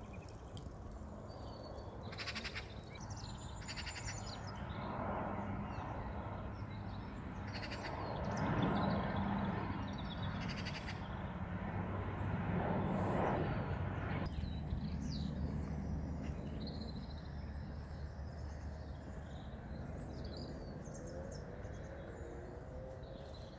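A plane flying overhead: a low engine drone that builds to its loudest between about eight and fourteen seconds in, then fades, with birds calling now and then over it.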